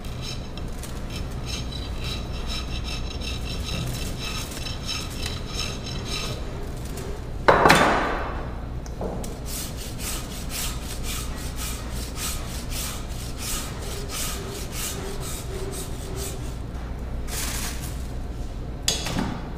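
Hand tools shaving a plaster positive mold: a draw knife scraping first, then a flat rasp grating across the plaster in quick repeated strokes. A louder sudden scrape comes about a third of the way in.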